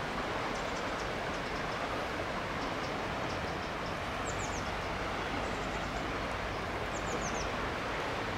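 Steady rushing of the swollen, flooded River Stour flowing fast after heavy rain. A bird chirps in two short high runs, about halfway through and again near the end.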